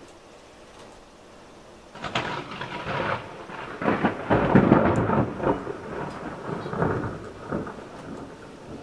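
A roll of thunder. It breaks suddenly about two seconds in, is loudest in the middle, and rumbles away over the following few seconds.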